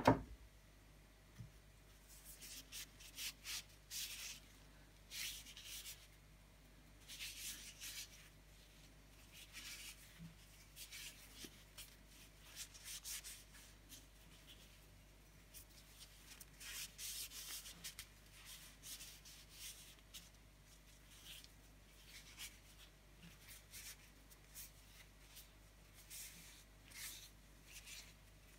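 Paper towel rubbing linseed oil into a wooden knife handle: soft rubbing and rustling strokes in short, irregular bursts. A single sharp knock right at the start.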